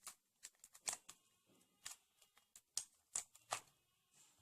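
Rubik's cube layers being turned by hand during a sequence of moves: a string of faint, sharp plastic clicks, about two a second, unevenly spaced.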